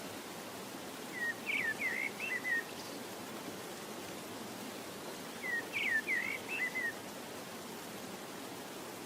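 A bird's short song of quick chirps, sung twice about four seconds apart, over a steady rushing noise.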